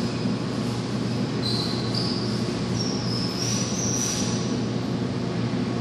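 Steady background hum of an arcade, with a short run of high electronic tones that step up in pitch between about one and a half and four and a half seconds in.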